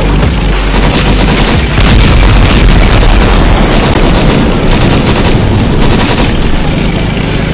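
Tank gunfire: a loud, continuous din of shots and booms, with sharp reports every half second to a second.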